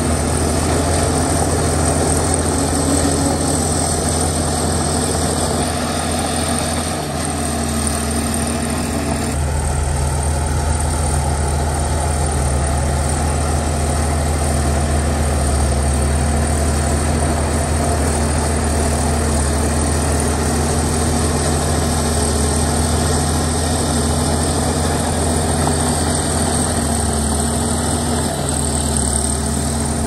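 Komatsu D61EX bulldozer's diesel engine running steadily; its note shifts about seven seconds in and runs deeper and stronger from about ten seconds in until near the end.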